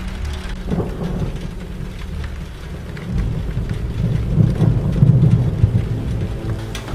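Thunderstorm: steady heavy rain with a deep rolling rumble of thunder that grows louder about three seconds in and then eases.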